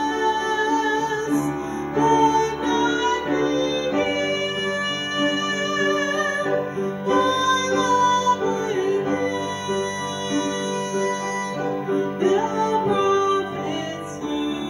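A woman singing a solo song over instrumental accompaniment, with held notes and vibrato.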